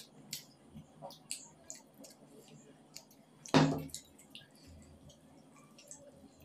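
Fingers mixing fried rice and paneer curry on a plate, with small wet clicks and squishes. About three and a half seconds in, a louder scraping burst comes as the paneer masala is tipped from its steel bowl onto the rice.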